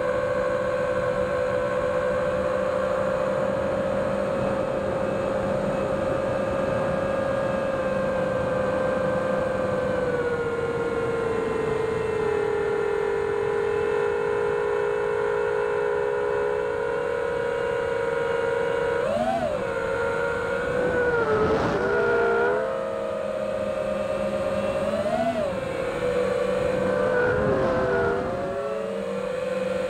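FPV quadcopter's brushless motors and propellers whining, recorded by the DJI Action 2 camera mounted on the quad, with wind rushing over its microphone. The several-toned whine holds steady, sinks a little lower about a third of the way in, then swoops up and back down a few times in the second half as the throttle is punched.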